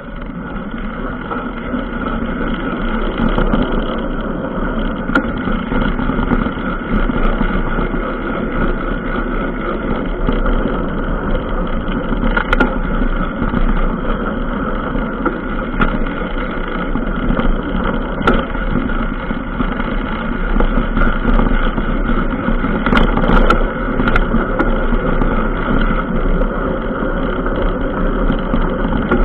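Steady running noise of a ride along a bumpy dirt trail, picked up by a camera riding along. Sharp knocks come from bumps a few times, about halfway through and again later on.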